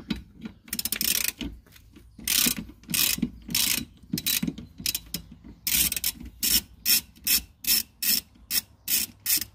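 Extendable Harbor Freight ratchet with a 10 mm socket clicking as it is worked back and forth to loosen a small bolt. The strokes come in a run, irregular at first, then quicker and more even at about two a second in the second half.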